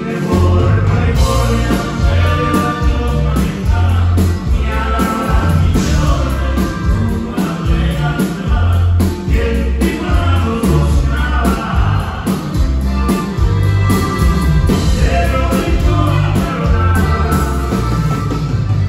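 Live norteño band music played loud through the stage PA: electric guitars and bass with drums, heavy bass notes on the beat, and singing over it.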